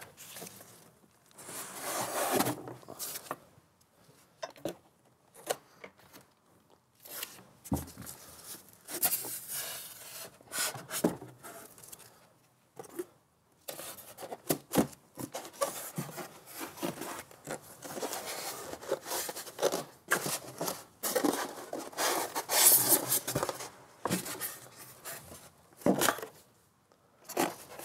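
Cardboard and polystyrene packaging being handled: foam inserts scraping and rubbing against the box in irregular bursts, with a few short knocks.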